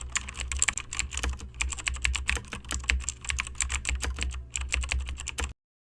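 Computer keyboard typing: rapid, irregular keystroke clicks over a low hum, stopping abruptly near the end.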